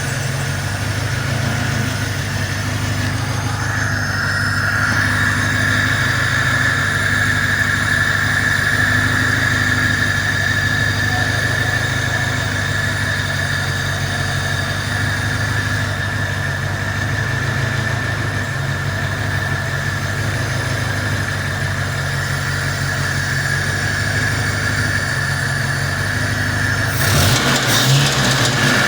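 VAZ 2101 four-cylinder engine idling steadily, an engine whose knock was traced to a worn piston pin. A steady high whine joins about four seconds in, and there is a brief louder noise near the end.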